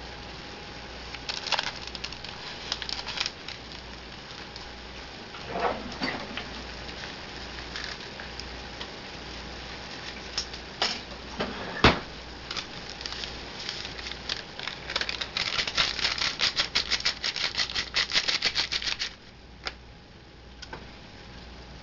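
A silicone spatula stirring and scraping ground venison in a skillet: scattered taps and scrapes, one sharp knock about halfway through, then a fast run of clicking for several seconds near the end.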